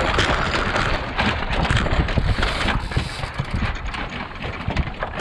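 Strong wind buffeting the microphone over the rush and splash of water against a sailing boat's hull, with many short splashes throughout.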